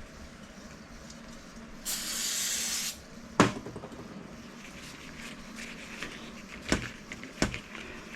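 A one-second burst of aerosol brake cleaner sprayed onto wiring-harness wires to get the dirt off, followed by three sharp clicks or knocks, the first the loudest.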